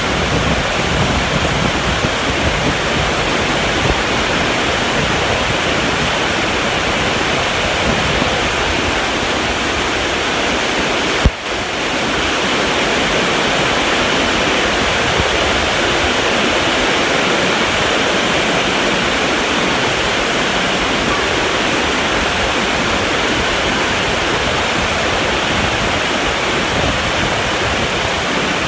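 Heavy tropical rain pouring down, a steady, dense hiss that does not let up. A single sharp click cuts through it about eleven seconds in.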